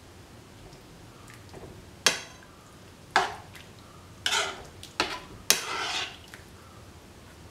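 A cooking utensil knocking and scraping against a pan while the curry is stirred: about five sharp knocks, some followed by a brief scrape.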